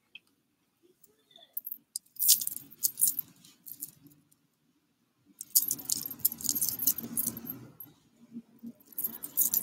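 Metal bracelets and rings jingling while a hand fluffs and rustles through hair. It comes in short bursts about two seconds in and from about five and a half seconds on.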